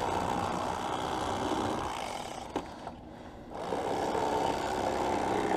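Corded electric fillet knife running with a steady buzz as its blades saw through a crappie. About halfway there is a click and the buzz drops away briefly, then it picks up again.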